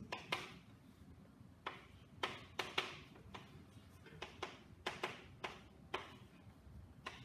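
Chalk tapping and scraping on a blackboard as an equation is written: about a dozen sharp, irregular taps, some trailing off in a short scratch.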